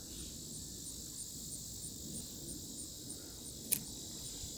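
Insects droning steadily in a high register, with a faint regular pulse about three times a second. A single sharp click comes about three-quarters of the way through.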